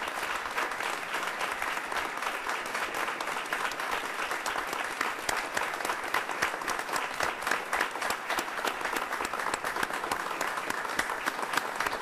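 Audience applause: many people clapping hands together, dense and steady.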